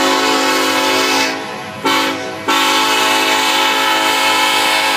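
A diesel locomotive's multi-note air horn sounds a chord: the end of one long blast, a short blast about two seconds in, then another long blast. This is the closing short-and-long part of the grade-crossing signal, heard over the low rumble of the passing train.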